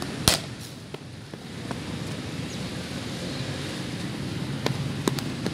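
Cricket bat striking a hard ball with a sharp crack shortly after the start, a few lighter knocks in between, and another sharp crack near the end, over steady wind noise on the microphone.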